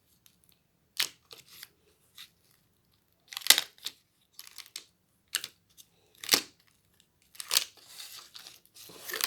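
Slime being mixed, giving separate sticky pops and crackles about once a second, with a longer rustling stretch near the end.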